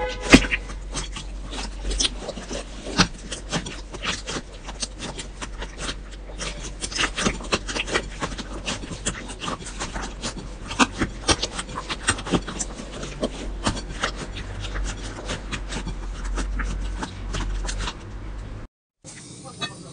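Blue slime being squeezed and kneaded by hand in a glass bowl of water: irregular wet squelches, pops and crackles. It breaks off briefly near the end.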